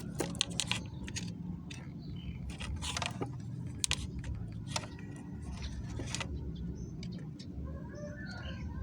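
Scattered light clicks and clinks over a steady low hum, with a short wavering call near the end.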